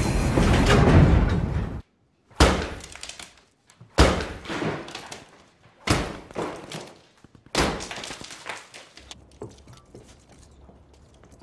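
A loud rushing noise cuts off suddenly, then come four heavy impacts about one and a half to two seconds apart, each followed by a decaying clatter.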